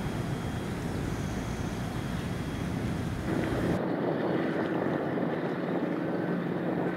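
Harbour ambience: wind rumbling on the microphone over a faint steady low hum. About three and a half seconds in, the sound changes abruptly: the deep rumble drops away, leaving a lighter wash of noise with a steady mid-pitched drone from a tugboat's engine crossing the harbour.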